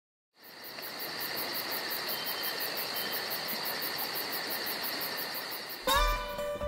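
A steady insect chorus: a constant high buzz with a fast trill pulsing about six times a second. It stops near the end, where acoustic guitar comes in with plucked notes.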